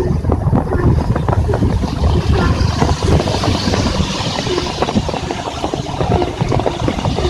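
Heavy rain falling on an umbrella, a dense patter of drops over a low rumble of highway traffic. From about halfway through, the hiss of a vehicle's tyres on the wet road grows louder as it approaches.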